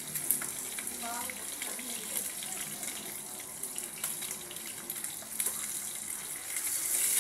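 Tinapa (smoked fish) frying in hot oil in a pan: a steady sizzle with scattered sharp pops and crackles.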